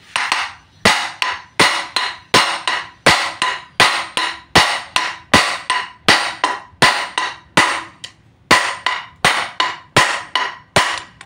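Hammer striking the steel yoke of a propeller shaft's universal joint (cross joint), about fifteen evenly spaced blows, roughly one every 0.7 s, each with a short metallic ring: knocking the joint's bearing cups out of the yoke to replace the worn cross joint.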